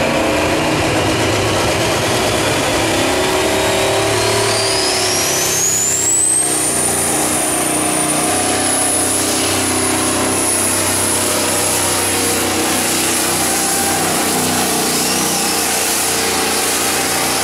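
1985 Mack Superliner's V-8 diesel with four turbochargers, run at full throttle while pulling a weight sled. It runs loud and steady, with a high turbo whine that climbs in pitch over the first several seconds and then holds high.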